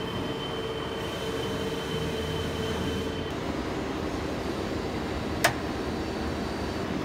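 Steady machine-shop hum, with a faint high whine that stops about halfway. A little past halfway there is a single sharp metallic click as the drill's shank is pushed into the lathe's tool-post holder.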